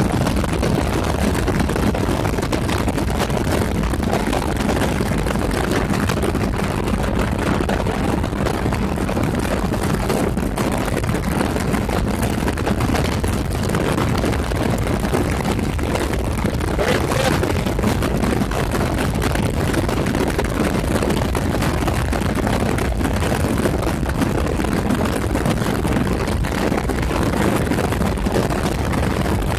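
Kawasaki 454 LTD motorcycle's parallel-twin engine running steadily at freeway cruising speed, with a steady hum under a heavy rushing noise.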